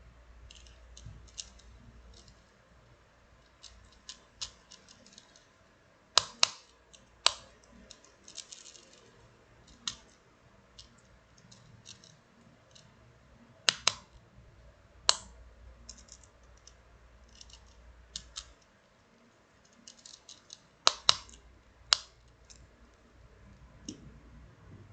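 Irregular sharp clicks and taps of a plastic fidget spinner being handled, with a few louder clicks among many faint ones.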